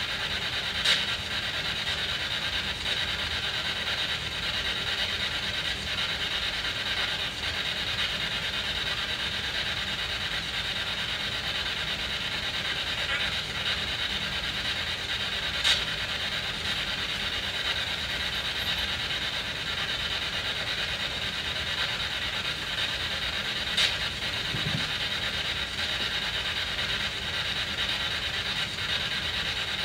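SB7 spirit box sweeping through radio frequencies: a steady hiss of static, broken three times by a short sharp blip, with a faint brief fragment of sound about 25 seconds in.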